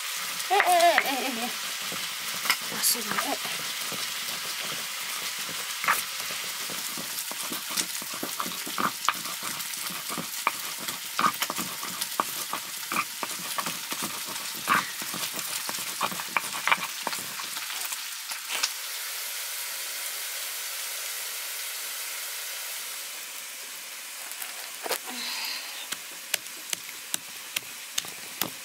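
Buffalo meat sizzling as it fries in a pan, with a spoon or ladle scraping and clicking against the pan as it is stirred. The sizzle fades near the end, and a run of evenly spaced knocks, about two a second, takes over.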